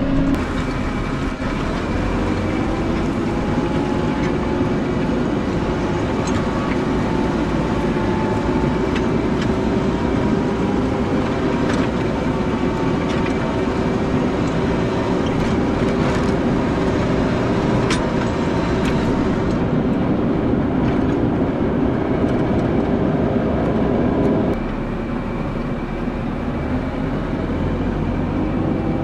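Farm tractor engine running steadily under load while pulling a plow, an even drone. About 24 seconds in, it settles to a lower, quieter note.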